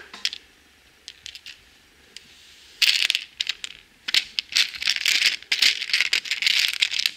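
Loose LEGO pieces clicking and rattling against each other and a plastic tray as a hand rummages through them in search of a missing part. At first a few separate clicks, then a dense clatter from about three seconds in.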